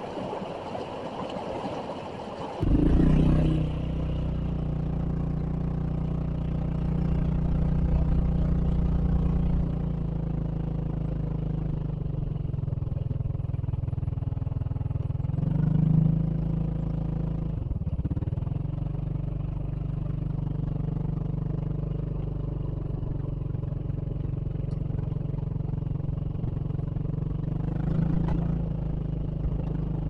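Rushing water of a small waterfall cascade for the first few seconds, cut off suddenly by a motorcycle engine running steadily under way, with its revs briefly rising about halfway through and again near the end.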